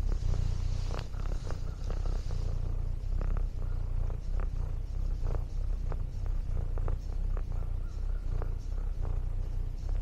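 Domestic cat purring steadily close to the microphone, a low, pulsing rumble, with short clicks scattered over it about once or twice a second.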